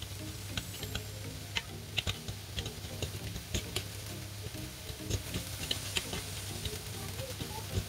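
A spatula clicking and scraping against a cast-iron grill pan as chicken breast strips are stirred, in irregular taps, over a light sizzle.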